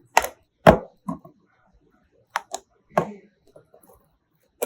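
A string of separate knocks and clicks, about seven in all with pauses between, of food containers and items being set down and arranged on refrigerator shelves.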